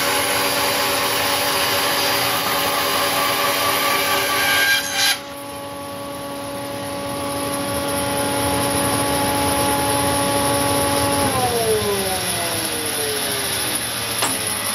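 Hammer N3800 bandsaw with a 3/4" SuperTuff Fastcut blade resawing 150 mm oak: the rasping cutting noise over the machine's hum stops abruptly about five seconds in as the blade leaves the board. The saw then runs free with a steady hum until, about eleven seconds in, it is switched off and its pitch falls as it spins down. A single click near the end.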